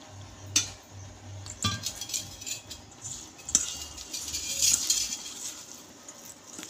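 A hand mixing chopped colocasia leaves into gram-flour batter in a bowl, squelching and rustling, with a few sharp clinks against the bowl.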